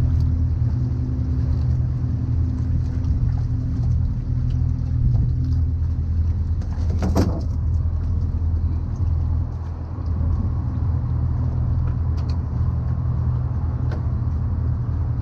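Steady low mechanical hum, like a motor or traffic, with several fixed low tones that do not change. A brief sharp sound cuts through it about seven seconds in.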